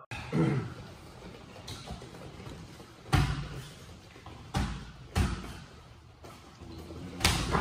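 Dull thuds of boxing sparring, four separate blows spread a second or more apart.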